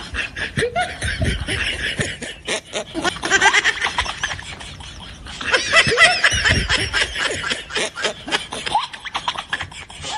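High-pitched snickering laughter, coming in several bouts with short pauses between.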